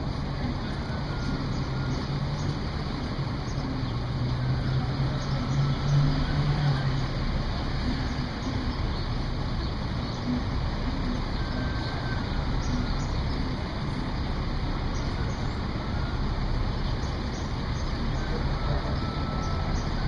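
Street traffic noise with a large vehicle's engine idling close by. Its low hum is strongest about four to seven seconds in.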